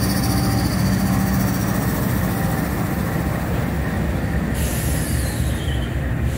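Norfolk Southern diesel locomotives, a GE AC44C6M leading, rolling slowly past close by: a steady low engine rumble with the sound of wheels on the rail.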